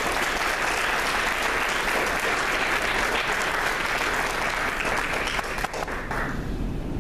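Audience clapping and applauding, lasting about six seconds and dying away near the end.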